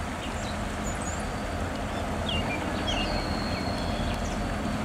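Diesel freight locomotives running with a steady low rumble as they approach slowly, with birds chirping briefly here and there over it.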